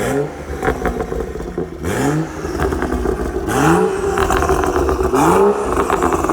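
2014 BMW 335i's N55 turbocharged inline-six revved four times in quick succession, each rev rising and dropping back in pitch, through a catless downpipe and M Performance muffler, which makes the exhaust louder.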